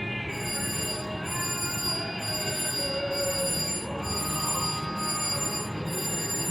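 Electronic slot machine chiming and ringing, with high ringing tones broken by short gaps about once a second and a short melody underneath. Steady casino-floor din of other machines runs beneath it.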